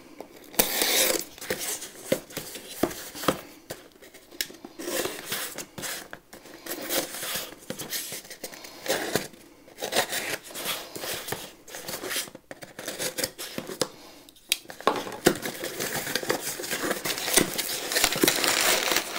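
A knife blade slitting the paper packing tape of a cardboard box in a series of short scratchy cuts and tears. Near the end the box flaps are opened and crumpled packing paper rustles.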